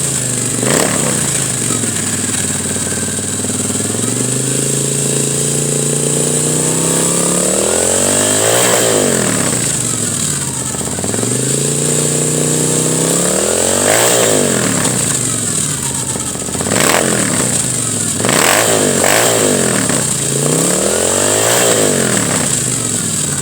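2013 Moto Guzzi V7 Racer's air-cooled V-twin through an aftermarket Agostini exhaust, idling and then revved: a slow climb to a peak about eight seconds in, another rev near fourteen seconds, then a string of quicker throttle blips near the end.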